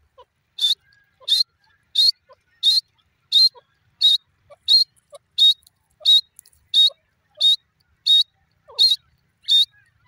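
Grey francolin calling: a steady series of short, sharp, high notes, about three every two seconds.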